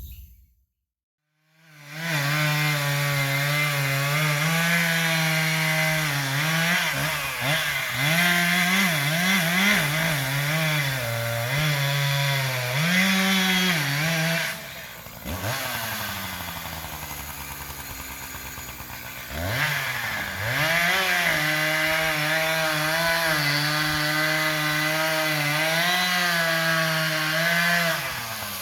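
Chainsaw cutting into a tree, running at high revs with its pitch dipping and rising as the chain bites. About halfway through it drops to idle for a few seconds, then revs back up and cuts again.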